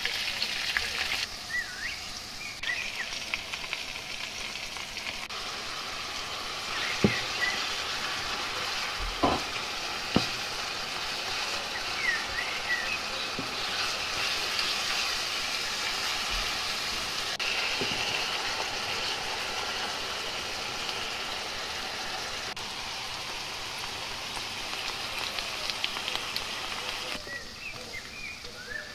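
Onions and minced meat frying in a pan, with a steady sizzle. A few sharp knocks come about a third of the way in.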